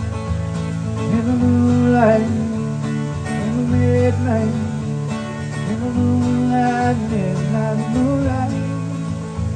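Solo acoustic guitar strummed in a country-style passage, with a melody line that bends slowly up and down in pitch over a steady low chord accompaniment.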